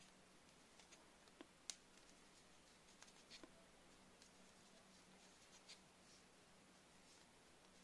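Near silence: faint rustling and small ticks of a metal crochet hook pulling yarn through single crochet stitches, the sharpest tick a little under two seconds in.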